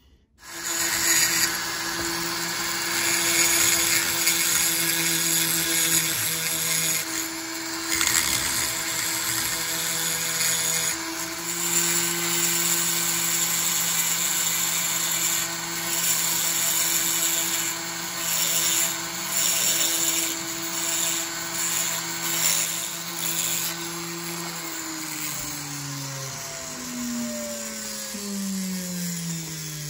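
Handheld rotary grinder spinning at high speed, its bit grinding metal inside a Homelite Super XL-130 chainsaw cylinder's port during porting. The steady whine comes in with a hiss that rises and falls as the bit bears on the port, and it winds down in pitch near the end.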